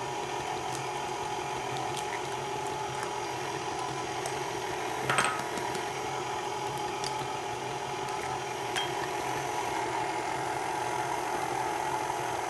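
KitchenAid stand mixer running steadily, its flat beater creaming butter and sugar in a glass bowl, a constant motor hum. A few light clicks and one sharper knock about five seconds in as eggs are cracked against a small glass bowl.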